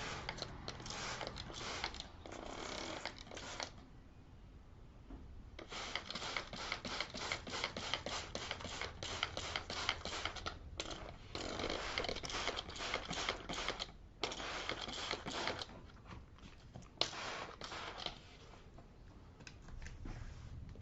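Scrubbing a dirty cloth back-seat cover in quick, rapid strokes, in spells of a few seconds with short pauses between.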